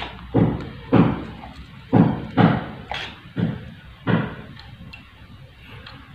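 A run of about seven dull knocks and thuds at irregular intervals, bunched in the first four seconds and then stopping, from handling the circuit board and soldering iron.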